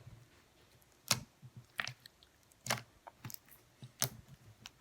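Homemade slime being squeezed and worked by hand, giving a handful of separate sticky clicks and pops.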